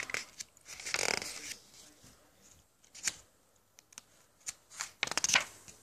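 Paper rustling as a page of a picture book is turned by hand: several short swishes and handling noises.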